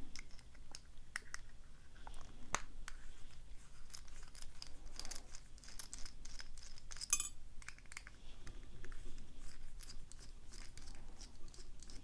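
Small Phillips screwdriver turning screws out of a brass lock cylinder: faint scratching of the bit in the screw heads with scattered light metallic clicks, a brief cluster of sharper clicks about seven seconds in.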